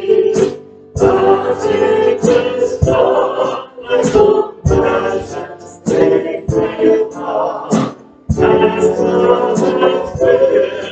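A small vocal group of women and men singing a worship song together into microphones, in phrases with short breaks between them.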